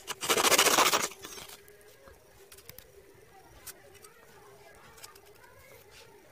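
A blade drawn along a steel ruler, cutting through cardboard in one rasping stroke of about a second near the start. It is followed by faint clicks from small corrugated-cardboard pieces being handled.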